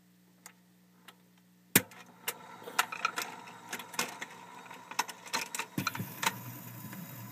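Shellac 78 rpm record's lead-in groove: a faint low hum, then a sharp loud click a little under two seconds in as the needle meets the record, followed by crackle and scattered pops of surface noise.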